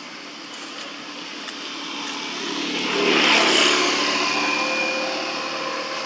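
A passing motor vehicle's engine, swelling to its loudest about three seconds in and then fading away.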